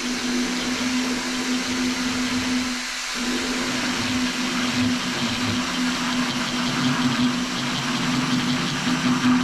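Power drill with a hole saw running steadily at slow speed, starting a cut into porcelain tile, its motor dipping out briefly about three seconds in.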